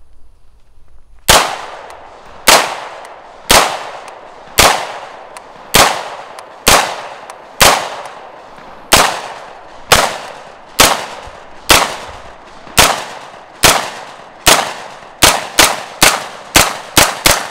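HK SP5K 9mm semi-automatic pistol firing about twenty single shots, each ringing out briefly. They come at a steady pace of about one a second, then quicken to about three a second near the end.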